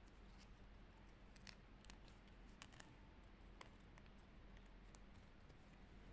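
Faint, irregular light clicks and taps of paper craft pieces being handled, over a low steady hum.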